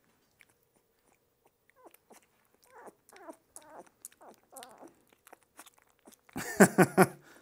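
Two-week-old Malinois puppy licking and smacking at an oral dewormer syringe: soft, wet clicks and smacks. Near the end comes a short, loud vocal burst.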